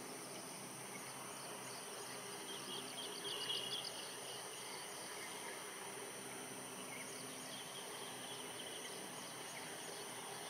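Quiet countryside ambience: a steady high insect buzz, with a short quick run of bird chirps about three seconds in and fainter chirps later.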